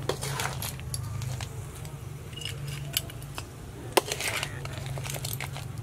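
Metal spoons clinking and scraping against a plate and a wok of cooked crabs. The clinks come at scattered moments, the sharpest about four seconds in, over a steady low hum.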